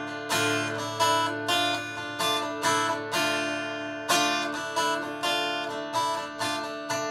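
Acoustic guitar playing the chords of a rock ballad, a stroke a little more than twice a second, each chord left to ring.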